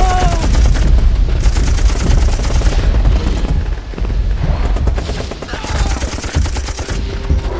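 Sustained automatic gunfire, many rapid shots running together over a heavy low rumble.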